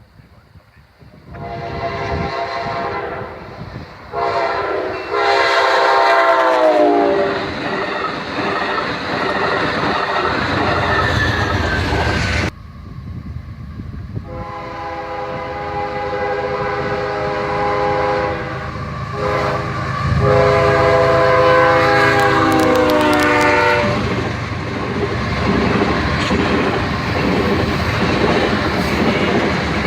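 Locomotive air horn blowing long blasts as a train approaches and passes, its pitch dropping as the locomotive goes by, with the train's wheels clattering on the rails. The pattern comes twice, split by a sudden cut about twelve seconds in.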